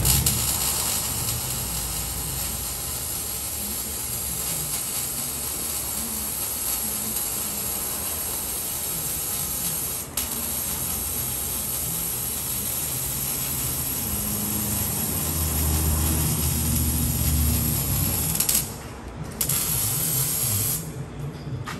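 Electric arc welding, tacking a chrome exhaust tip onto a straight-pipe exhaust: the arc gives a steady crackling hiss that stops briefly twice near the end.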